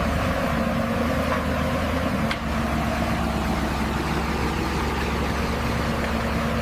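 Steady low engine hum, like a vehicle idling, with a brief break about two and a half seconds in.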